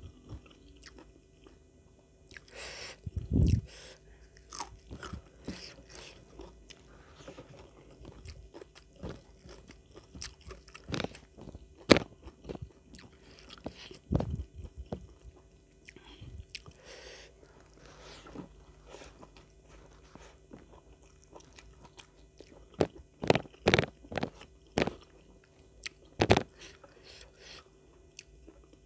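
Close-miked eating of raw vegetables and rice: crisp bites and crunches with wet chewing between them, coming in irregular clusters, the loudest crunches about three seconds in, around eleven to fourteen seconds, and near the end.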